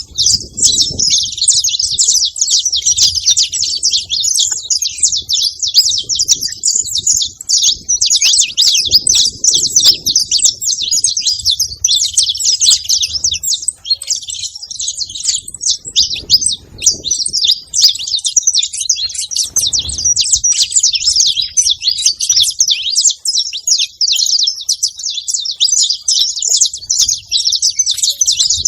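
Saffron finches chirping continuously in a dense, high-pitched chatter.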